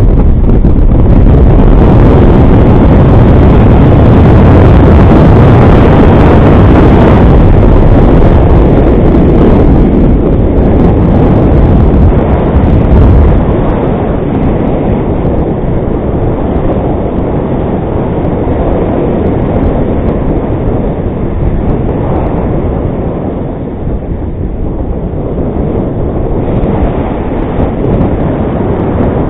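Strong wind buffeting the microphone of a paraglider in flight, a loud, steady rumble. It eases somewhat and turns duller about halfway through.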